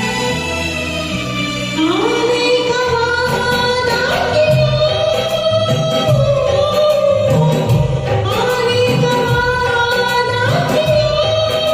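A woman singing a Hindi film song over a backing track with a steady beat. Her voice comes in about two seconds in, gliding up into a long held note, and the phrase is sung again near the end.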